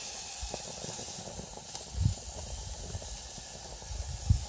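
Strip loin steaks sizzling on a barbecue grill over open flame, a steady hiss, with two low thumps about two seconds in and near the end.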